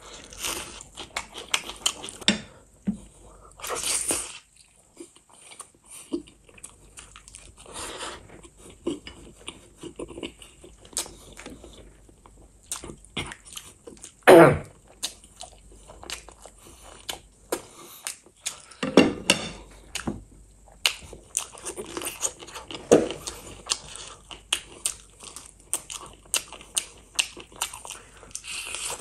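Close-miked chewing and biting of chicken feet and rice, with many small sharp clicks and crunches. There is a louder wet sound about halfway through, and another a few seconds later.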